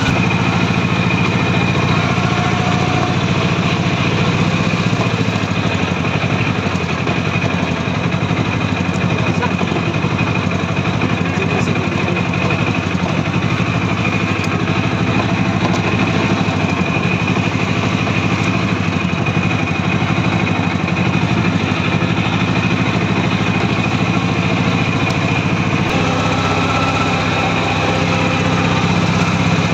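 Steady engine and road noise of a vehicle driving along, heard from inside the cabin: an even, low drone with no breaks.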